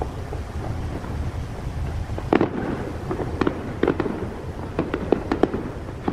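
Aerial fireworks bursting overhead: a continuous low rumble, then from about two seconds in a rapid run of sharp cracks and pops as the shells burst and crackle.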